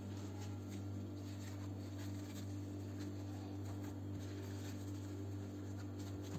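Faint rustling and crinkling of thin yufka pastry sheets being torn, laid into a baking tray and smoothed flat by hand, over a steady low hum.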